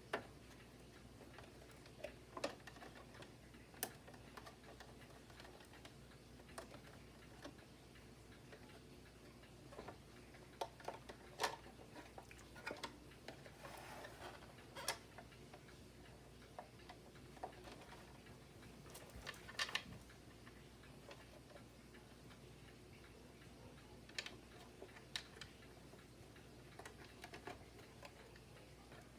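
Scattered light clicks and taps at irregular intervals as small parts and hand tools are handled during disassembly of a vacuum cleaner, over a faint steady hum.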